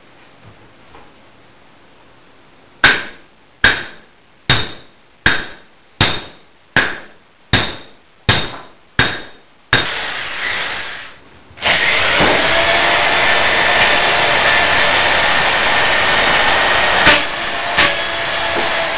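About ten sharp knocks, evenly spaced a little under a second apart, then a handheld power drill spins up and runs steadily with a whine, its bit boring into a meatloaf.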